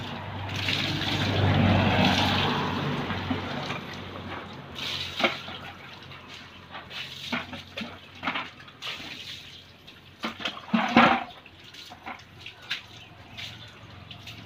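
Water poured from a plastic dipper splashing over a motorcycle and onto wet concrete, a long rushing pour in the first few seconds. It is followed by scattered knocks and splashes as the dipper scoops from a bucket, the loudest about eleven seconds in.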